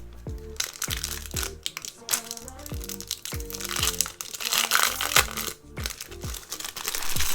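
Background music with a steady beat: a low, falling bass hit about every 0.7 s under held chords. Over it runs the crinkling of foil Pokémon booster-pack wrappers being handled, which swells about four seconds in and again near the end.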